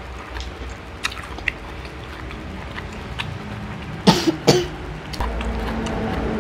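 Faint, scattered mouth clicks of people chewing fresh spring rolls, then two quick coughs about four seconds in.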